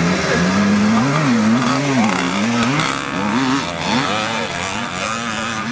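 Vintage motocross motorcycle engines racing on a dirt track, several bikes at once, their revs repeatedly rising and falling as the riders work the throttle and shift.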